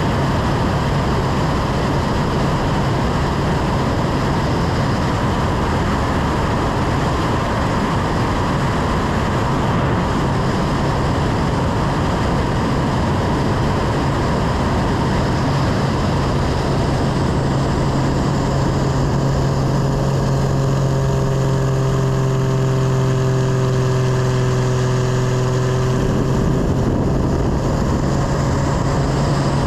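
An aerobatic plane's piston engine and propeller run steadily under heavy wind rush. Past the middle the engine note drops lower for several seconds, then jumps back up a few seconds before the end.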